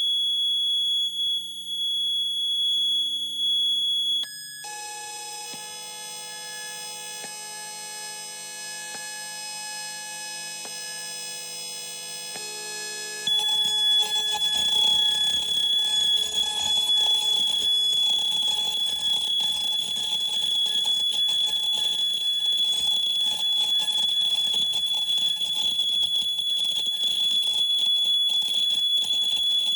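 Electronic noise music built from sustained tones. A piercing high steady tone switches about four seconds in to a quieter cluster of many held tones. About 13 seconds in, a louder hissing, crackling wash comes in with the high tone back on top.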